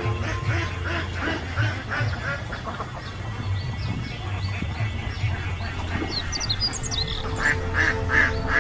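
Bird calls over background music with held notes: a run of short repeated calls in the first couple of seconds and again near the end, with a few high chirps just before the second run.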